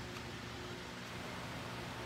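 Quiet room tone: a steady low hum and hiss, with no clear events.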